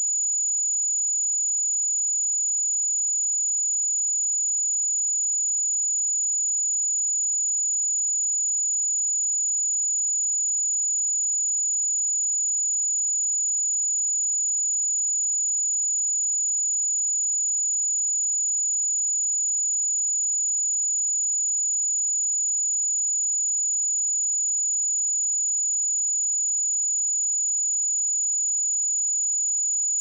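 A pure 6912 Hz sine-wave test tone, a single high-pitched steady whistle held at a constant level.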